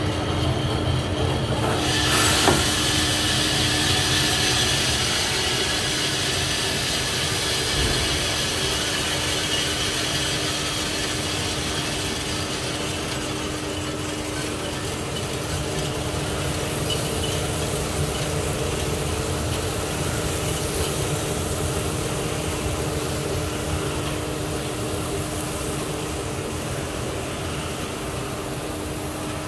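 Coffed SR5 5 kg drum coffee roaster running, a steady mechanical hum with one constant tone. About two seconds in, a hiss comes in suddenly with a click and slowly eases off over the rest of the stretch.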